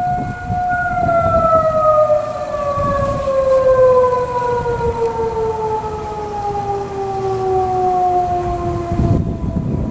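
Federal Signal 2001-SRN electromechanical outdoor warning siren holding a steady tone, then winding down from about a second in, its pitch falling slowly and evenly until it stops shortly before the end.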